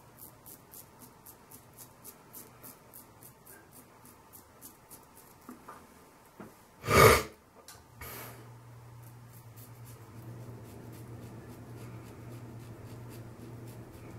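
Wolfman WR1-OC open-comb double-edge safety razor scraping through stubble on the upper lip in short quick strokes, about three or four a second. About seven seconds in there is one loud short burst of noise, and soon after a steady low hum sets in.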